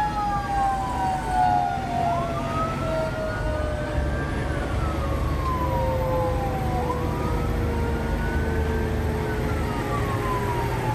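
Fire engine siren heard from inside the cab, wailing: each cycle rises quickly, then falls slowly, about every two and a half seconds. A second, lower siren tone winds down steadily in pitch throughout, over the truck's low engine rumble.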